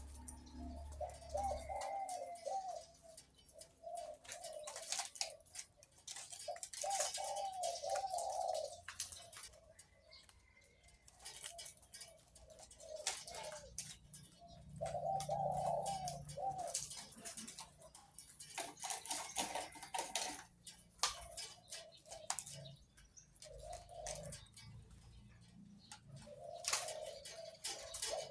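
Captive-bred zebra dove cooing in a deep voice: short trilled coo phrases repeated every few seconds, with sharp clicks between them.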